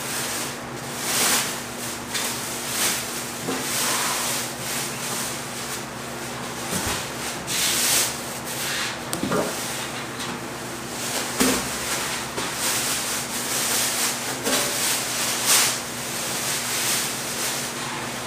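Cardboard packaging rubbing and scraping as grill parts are handled and pulled out of their box, in a string of irregular swishes with a few light knocks.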